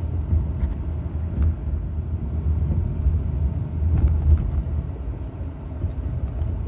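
Car cabin noise while driving: a steady low rumble of the road and engine, with a faint click about four seconds in.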